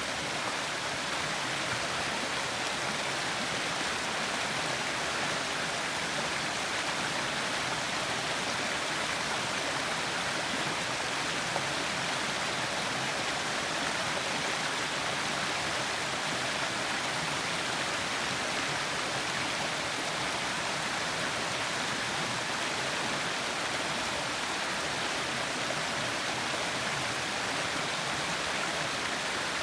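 River water rushing and splashing over rocks, a steady, even hiss without pause.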